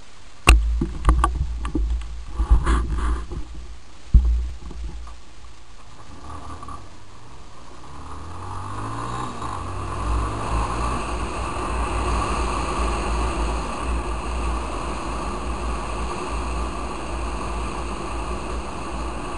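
A few sharp knocks and bumps on the microphone in the first four seconds. Then a Yamaha Fazer 250's single-cylinder engine pulls away, its pitch rising for a few seconds, and settles into steady riding under constant wind and road noise.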